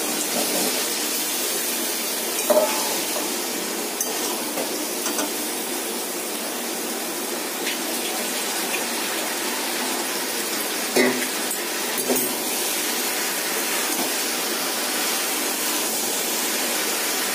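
Fried potatoes, pumpkin and pointed gourd sizzling steadily in mustard oil and spice paste in a kadai as they are sautéed, with a few knocks of the spatula against the pan.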